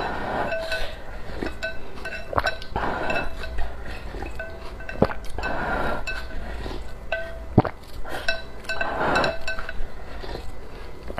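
Wooden chopsticks tapping and clinking against a ceramic bowl, each tap leaving a short ring, while noodles and spicy soup are slurped in about four long slurps.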